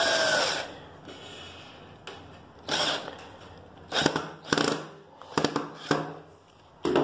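Cordless drill-driver running as it drives a screw into a particleboard bed slat, its whine stopping about half a second in. After that come several short bursts and knocks.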